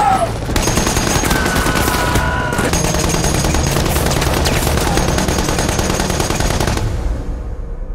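Sustained rapid gunfire, machine guns among it, from a war drama's battle soundtrack; it dies away near the end.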